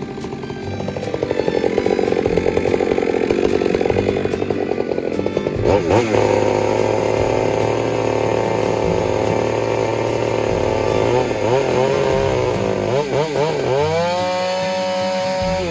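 Two-stroke chainsaw running hard, its pitch sagging and wavering as it cuts through fir log, then rising to a steady higher note near the end as the bar comes free.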